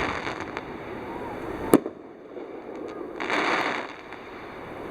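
Aerial fireworks going off: a single sharp shell burst bang a little under two seconds in, followed about a second and a half later by a brief hissing crackle lasting about half a second, with faint smaller pops early on.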